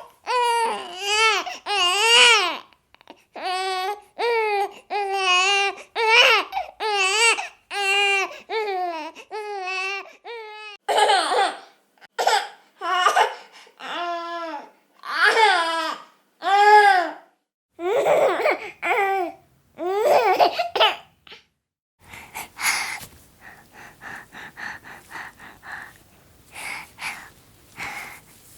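Baby laughing and babbling in repeated high-pitched bursts, the voice gliding up and down. About 22 seconds in this gives way to a quieter, rapid run of short strokes.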